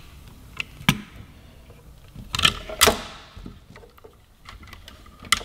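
Hands handling a plastic motorcycle turn signal and its small metal bracket on a rubber workbench mat: a few sharp clicks and knocks, the two loudest about two and a half and three seconds in.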